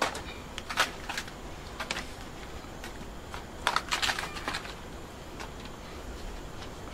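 Split firewood log being shoved into a wood fire, wood knocking and scraping in clusters of sharp clicks: near the start, about a second in, and again around four seconds in.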